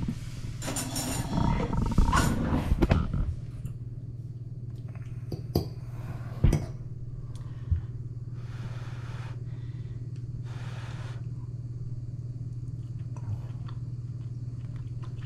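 A fork scraping at baked fish on a ceramic plate, then a few sharp clinks of the fork on the plate. Two short puffs of breath follow, blowing on the hot forkful, over a steady low hum.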